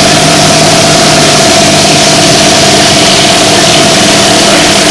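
Steady mechanical hum with a constant high whine over heavy hiss, the running noise carried on a Super 8 sound film's soundtrack.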